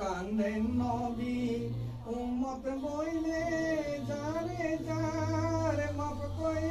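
A single voice singing a slow melody in long held notes that bend up and down, a devotional song.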